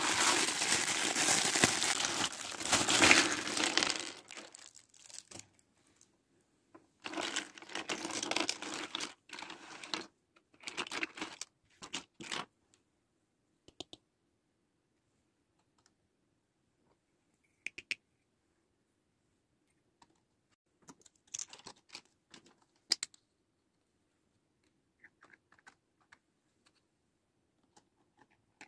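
Plastic packaging crinkling loudly for the first few seconds, and again in two shorter spells a little later. After that come scattered light clicks and taps of small hard plastic toy pots, pans and lids being handled and set in place.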